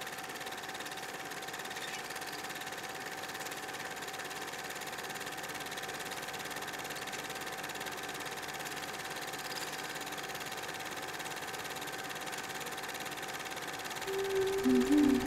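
A steady mechanical whirring hum, like a small motor running, with a faint held tone in it. Keyboard notes come in near the end.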